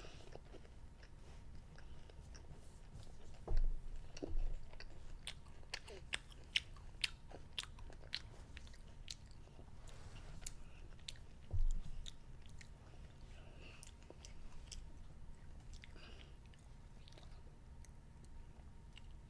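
A child chewing a mouthful of jelly beans, close to the microphone, with many small wet mouth clicks through the middle of the stretch. A few dull low thumps break in, two close together about three and a half seconds in and one near twelve seconds.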